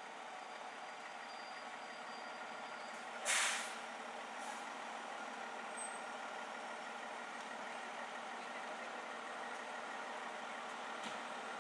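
Fire engine idling steadily, with a short, loud hiss of released air from its air brakes about three seconds in and a fainter hiss a second later.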